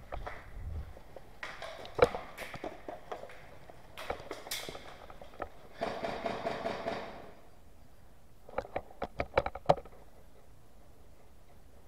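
Movement of an airsoft player on a debris-strewn concrete floor: scuffing steps and gear rustle, with a sharp knock about two seconds in. Near the end, after a quieter stretch, comes a quick run of about eight sharp clicks.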